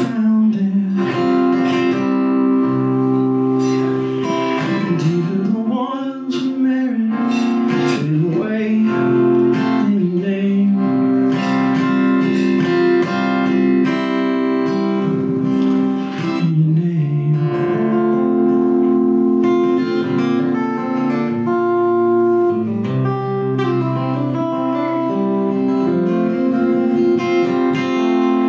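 Acoustic guitar music, with a voice singing in the first part.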